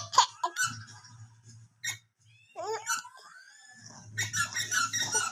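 A person laughing with hiccups: a few sharp hiccups in the first two seconds, then squeaky rising vocal sounds, then a quick run of laughter near the end.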